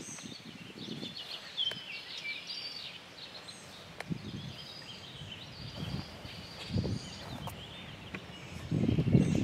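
Songbirds chirping and singing in quick, overlapping phrases, with low gusts of wind noise on the microphone now and then, strongest near the end.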